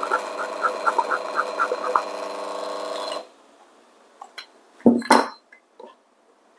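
DF64 flat-burr coffee grinder motor running with short repeated puffs and clicks as the bellows is pumped to purge retained grounds, then cutting off suddenly about three seconds in. Near the end, two loud knocks as the metal-rimmed dosing cup is set down on a scale.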